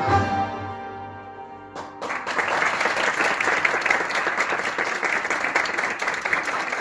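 The last chord of a Persian traditional ensemble (santurs, tars and a kamancheh) rings out and fades, then audience applause breaks out suddenly about two seconds in and carries on steadily.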